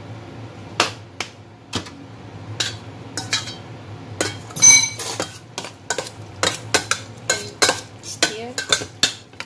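Metal spoon knocking and scraping against a stainless steel bowl while stirring sliced pork in its marinade: irregular clinks, more frequent in the second half, with one louder ringing clink about four and a half seconds in.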